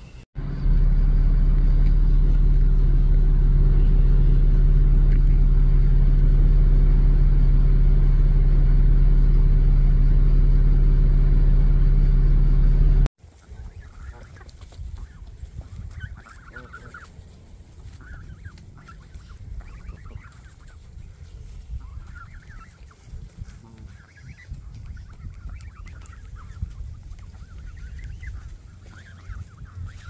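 A loud, steady low drone holding several constant tones runs for about thirteen seconds, then cuts off abruptly. After it, Canada geese and goslings make short, scattered calls over a quiet background.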